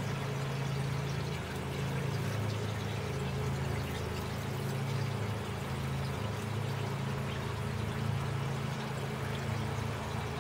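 Small pond waterfall pouring and trickling steadily, over a low steady drone from the neighbours' landscaping machinery.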